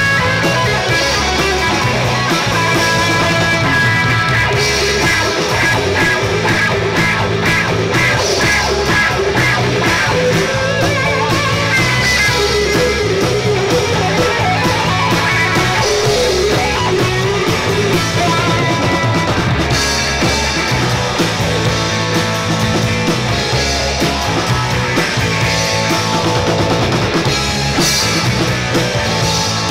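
Live rock band playing through a PA, with electric guitars, acoustic guitar and drum kit.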